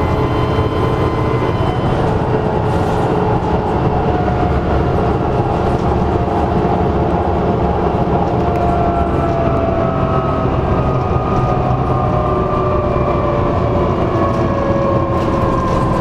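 Dennis Trident bus engine running steadily with a turbocharger whine over it. Through the second half the whines slowly fall in pitch.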